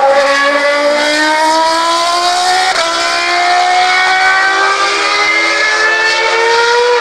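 Formula 1 car engine accelerating hard, its pitch climbing steadily through the gears with an upshift about three seconds in and another near the end.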